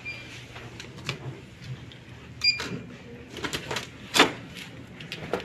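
Metal key with a plastic fob clinking and scraping at a hotel room door lock: a string of small metallic clicks and jingles, then a louder click about four seconds in as the lock works.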